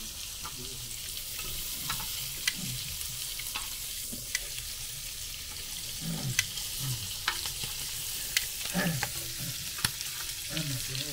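Skewered sausages and meatballs sizzling steadily on a grill pan, with metal tongs clicking sharply against the pan and skewers now and then as the skewers are turned.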